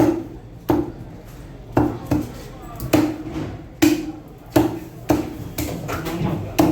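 A heavy knife chopping through a snapper on a cutting block, about nine strikes at an uneven pace.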